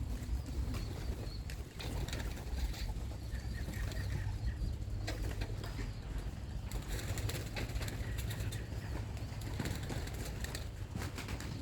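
Young pigeons at the loft cooing, with wings flapping and clattering now and then, over a steady low rumble of wind on the microphone.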